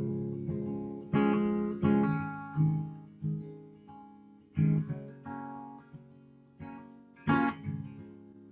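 Acoustic guitar playing a slow song intro: chords struck about every two-thirds of a second, each ringing out and fading, with one sharper, louder strum near the end.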